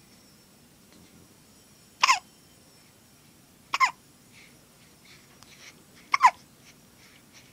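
A girl hiccuping three times, each hiccup a sharp, high squeak that drops in pitch, like a squeaky toy penguin.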